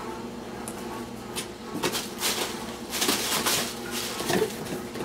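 Crumpled paper rustling and crackling as a kitten jumps into a box full of it and scrabbles about, in irregular bursts from about two seconds in.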